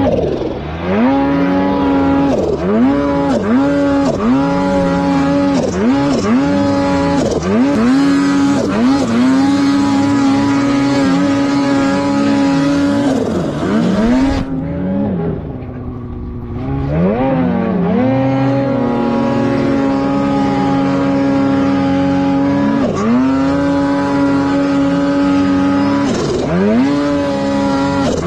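Snowmobile engine revved hard in deep powder, the throttle blipped again and again so the pitch swoops up and falls back, with long stretches held at high revs. About halfway through the revs drop low for a couple of seconds, then climb and hold high again.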